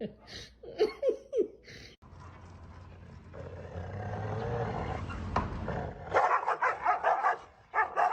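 A dog barking in a rapid run of short, sharp barks and yips that starts about six seconds in, after a brief whine.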